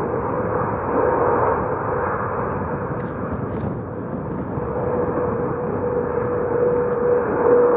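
Airbus A330-200 twin jet engines at takeoff thrust: a steady jet roar with a sustained droning tone running through it.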